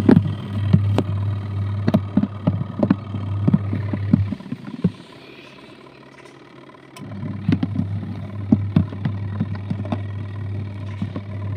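Adler AD8051 mini washing machine on its wool cycle, its motor running with a steady low hum and irregular knocks. It stops about four seconds in and starts again roughly three seconds later.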